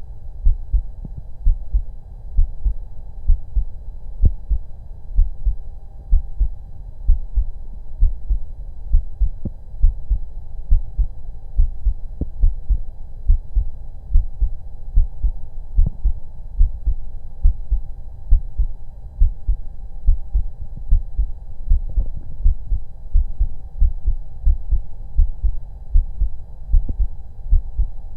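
A human heartbeat heard through a stethoscope: steady low thumps at about one beat a second, with a faint steady hum beneath.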